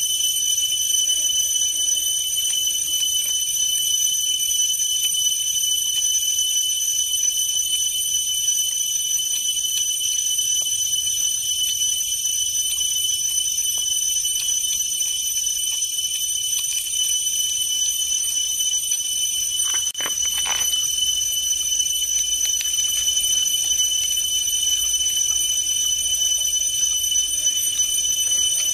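Steady, high-pitched, unbroken drone of a forest insect chorus, with a brief sliding sound about two-thirds of the way through.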